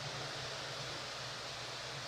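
Steady background hiss with a low, even hum underneath: room tone.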